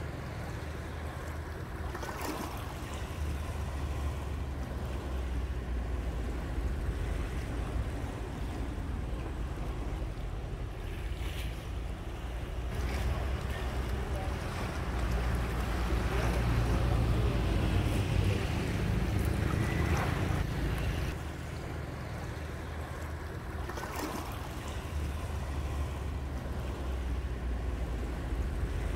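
Wind rumbling on the microphone over the wash of sea waves. It swells for several seconds past the middle, then drops off sharply.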